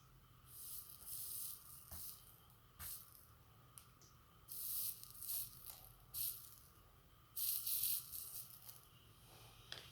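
Hands working on a charger's parts: several short, hissy scraping or rustling strokes, with a few sharp clicks in between.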